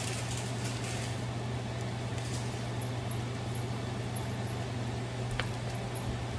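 Garlic and onion sizzling in melted butter in a stainless steel wok, over a steady low hum; a single sharp click a little after five seconds.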